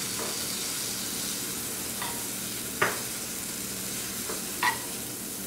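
Butter sizzling as it melts in a hot frying pan, stirred with a metal spoon that clicks against the pan a few times, loudest near the middle.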